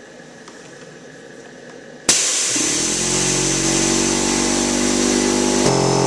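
A 1.3-horsepower portable electric air compressor switching on abruptly about two seconds in. Its motor spins up within a fraction of a second, then runs steadily with a loud hum and hiss.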